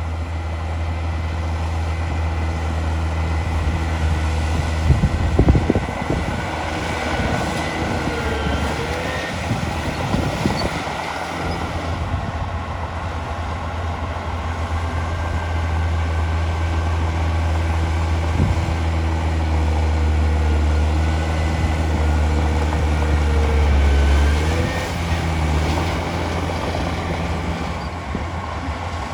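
The heavy diesel engine of earthmoving machinery runs steadily with a deep hum, and a few clanks come about five seconds in and again around ten seconds in.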